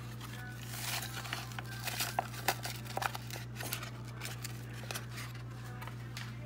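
Dried ranch seasoning mix packet crinkling and crackling as it is torn open and shaken out over a stainless steel bowl, in a run of quick crackles about one to four seconds in.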